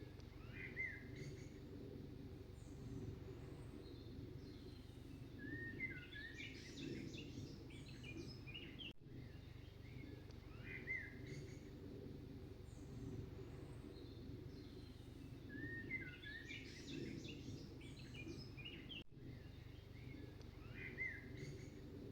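Looped background track of birdsong over a low steady rumble: the same chirping bird calls come back about every ten seconds, with a brief break at each restart of the loop.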